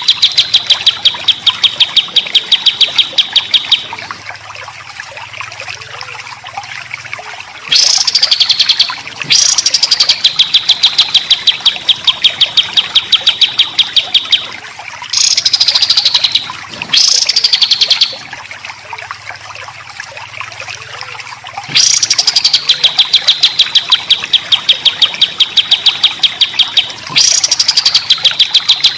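A songbird sings loud, rapid-fire phrases. Each opens with a swooping note and runs into a fast string of identical harsh notes, several a second, in bursts of one to six seconds separated by short pauses. This is the dense, rough 'tembakan' (shot) style of song used as a training master for songbirds.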